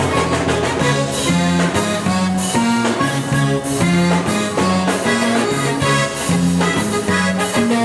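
Live zydeco band playing an instrumental stretch, with a bass line stepping from note to note under held chords and a steady beat.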